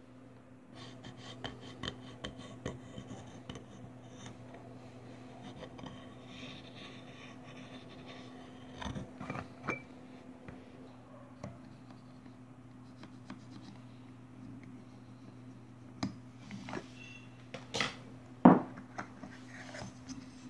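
A pen scratching and rubbing on a thin aluminium disc pressed under an upturned glass jar, shaping the disc into a domed diaphragm for a pop-pop steam engine. Scattered clicks and taps of the glass and metal follow as they are handled, with a sharp knock near the end the loudest, over a low steady hum.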